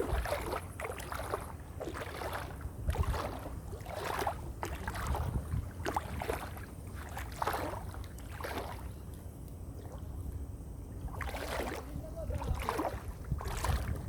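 Water splashing in a run of repeated strokes, about one to two a second, pausing for a couple of seconds late on, over a steady low rumble.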